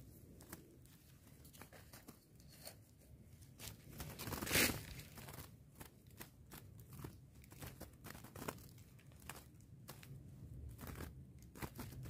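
Woven bamboo bird trap creaking and rustling against dry leaf litter as it is handled and pressed flat by hand, with scattered light clicks and crackles and one louder rustle about four and a half seconds in.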